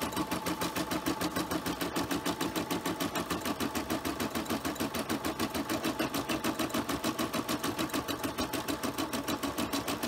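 Home embroidery machine stitching out a design, the needle running in a rapid, even rhythm.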